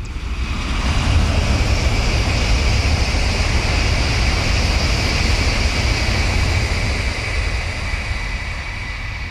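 N700-series Tokaido Shinkansen train passing at high speed: a loud, steady rushing noise that sets in suddenly at the start and slowly tails off near the end.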